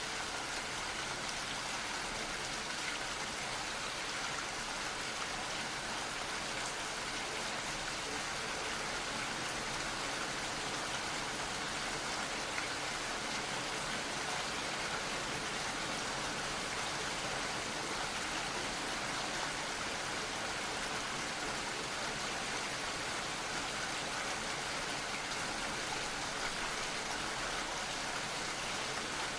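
Gentle rain falling steadily, an even patter of drops with no breaks or changes.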